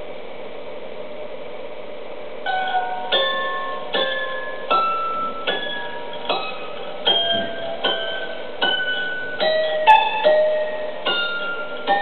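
Background music: a steady hum, then from about two and a half seconds in a slow melody of single plucked notes, each fading out, roughly one every three-quarters of a second.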